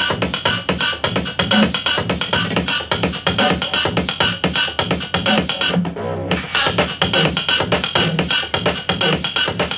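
A song with a steady driving beat played loudly through a TPA3116 class-D amplifier and two mini bookshelf speakers with 4-inch drivers, without the subwoofer. The beat drops out briefly about six seconds in, then comes back.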